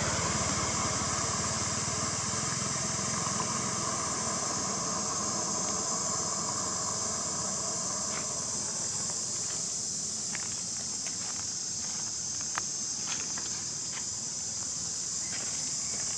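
Steady high-pitched chorus of insects shrilling in the background, while the low rumble of a passing vehicle dies away over the first half. From about halfway, scattered light ticks and scuffs.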